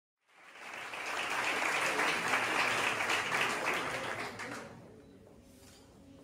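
Audience applauding, fading in just after the start and dying away about five seconds in.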